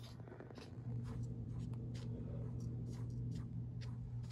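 Light, scattered scratching and clicking over a steady low electrical hum.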